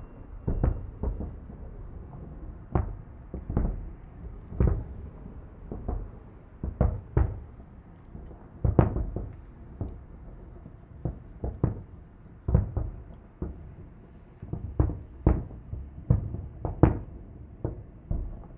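Fireworks salute heard at a distance: shells bursting one after another in dull booms, roughly one every half second to second and a half, each trailing off in a short echo.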